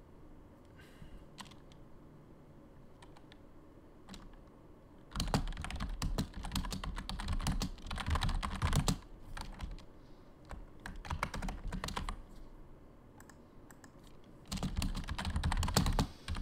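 Typing on a computer keyboard: a few stray keystrokes over the first five seconds or so, then runs of fast typing, loudest in the middle and again near the end.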